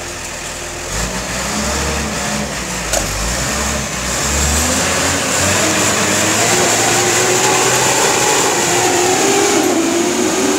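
Diesel engine of a concrete mixer truck revving hard under load. Its pitch climbs slowly over the last six seconds as the truck strains.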